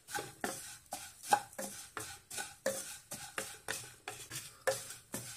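Wooden spatula stirring dry, ghee-roasted vermicelli and cashews in a coated kadai, knocking and scraping against the pan about three times a second.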